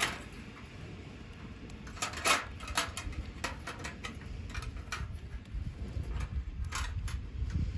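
Scattered light knocks and clinks of hard objects being handled, the loudest about two seconds in, over a steady low rumble.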